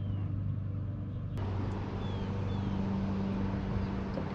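Jon boat's outboard motor running steadily at low trolling speed, a low even hum, with the hiss of wind and water around the boat growing louder about a second in.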